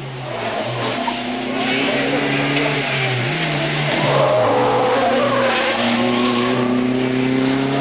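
Rally car engine running hard under load, growing louder over the first couple of seconds. Its pitch drops and climbs with gear changes, then rises steadily toward the end as the car accelerates.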